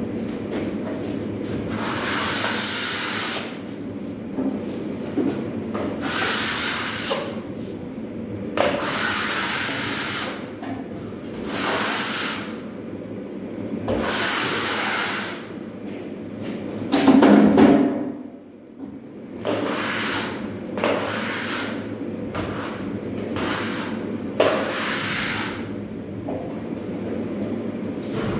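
Plastering trowel scraping compound onto a drywall wall in repeated strokes, each about a second long and about a dozen in all, over a steady low hum.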